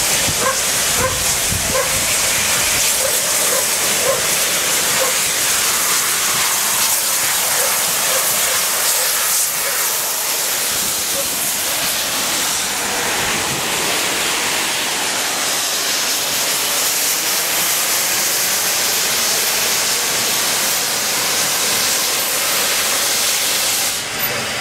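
LMS Black Five steam locomotive No. 45212 passing close by with a loud, steady hiss of escaping steam.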